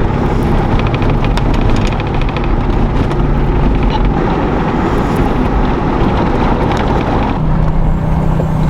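Off-road 4x4 truck driving on a dirt trail: a steady engine and tyre rumble with wind buffeting the microphone and a few light rattles in the first half.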